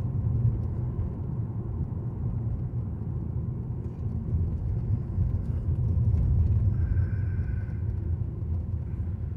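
Steady low road and tyre rumble inside the cabin of a Nissan Leaf electric car driving along a road.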